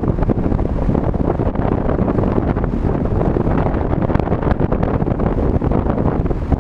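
Car driving on a highway: steady road and wind noise, with wind buffeting the microphone.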